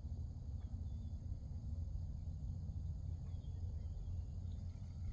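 Quiet outdoor background noise at night: a steady low rumble, with faint steady high-pitched insect chirring above it.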